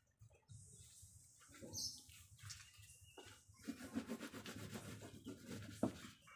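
Hands rubbing and smoothing glue-wet brown cement-bag paper onto a wooden reog barongan head: soft, irregular rustling and scraping of paper against the form, busier in the second half, with a light knock near the end.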